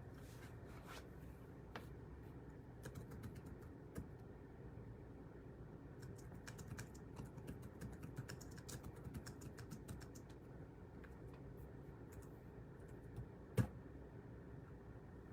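Faint typing on a computer keyboard, clicks coming in bursts, with one louder knock near the end.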